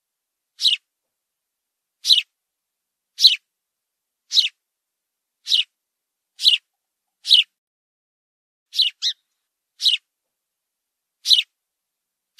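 House sparrow chirping: short, single, downward-sliding chirps about once a second, with one quick double chirp near the end and silence between calls.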